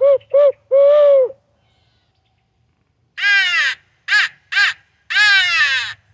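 Electronic game caller playing recorded owl hoots, short, short and long, then after a two-second pause four loud crow caws, the first and last drawn out, used to draw in crows.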